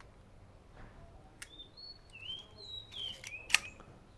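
The leaf shutter of a Kodak Retina IIS firing at 1/8 second. There are sharp clicks about a second and a half in and, louder, about three and a half seconds in. Birds chirp faintly in the background.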